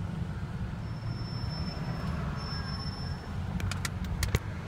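Low, steady rumble of vehicle engines heard from inside a car, with a few sharp clicks near the end.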